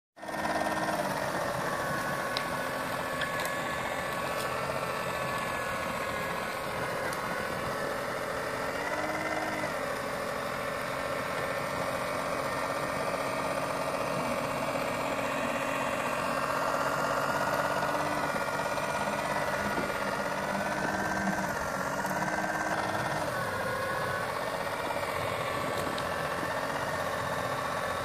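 Motor of a 3D-printed mini snow blower on a radio-controlled snowcat running steadily, a whine whose pitch dips briefly a few times as it throws snow.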